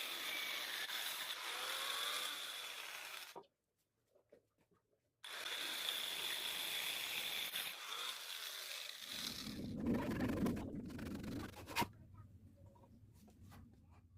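Woodworking on boat timber: a power tool running steadily with a whine, in two edited stretches split by a brief silence. It then gives way to rougher scraping and rubbing of wood, with a sharp knock and lighter ticks near the end.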